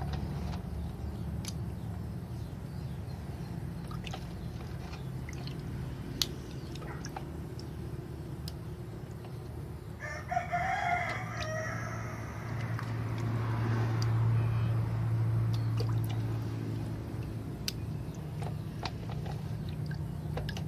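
A rooster crowing once, about ten seconds in, over a steady low hum. A louder low drone swells and fades in the second half, with scattered light clicks throughout.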